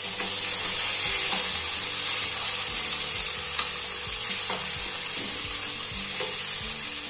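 Onions, garlic, tomatoes and whole spices sizzling steadily in hot mustard oil in a metal kadhai as the masala base fries. A steel spoon stirs through it, scraping and now and then clicking against the pan.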